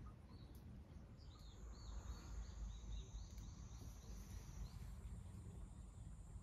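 Faint run of short high chirps, about three a second, from a small wild animal, with a thin steady high tone over the same stretch, over low rumble. The chirps die away about two thirds of the way through.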